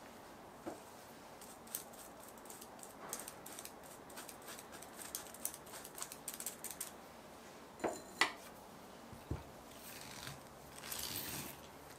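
Kitchen utensils being handled: a run of light clicks and ticks, then two sharper knocks close together about eight seconds in, a dull thud, and a brief rustle near the end.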